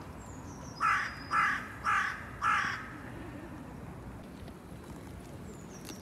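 A crow cawing four times in quick, even succession, each caw short and harsh.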